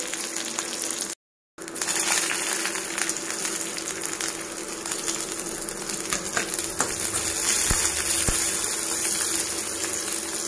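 Tempering sizzling in hot oil in a kadai: mustard seeds, dry red chillies, curry leaves and sliced shallots frying with a steady hiss and a few light crackles. It cuts out briefly to silence about a second in.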